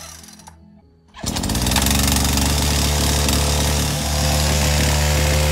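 Husqvarna two-stroke gas chainsaw engine coming in about a second in, rising briefly in pitch, then running steadily.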